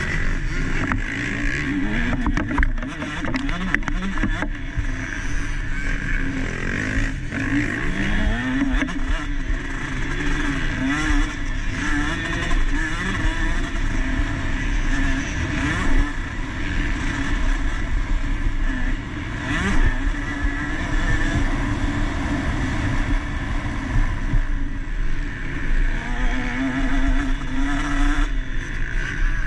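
Single-cylinder two-stroke engine of a KTM SX 150 motocross bike racing, revving up and falling back again and again as the throttle is opened and shut.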